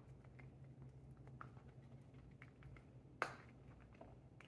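British Shorthair munchkin cat eating, heard close up as faint, irregular chewing clicks every few tenths of a second, with one sharper click about three seconds in, over a low steady hum.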